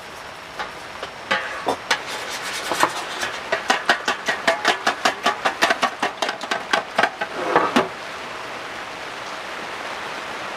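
A quick run of sharp knocks, about four a second for some six seconds, over a steady hiss.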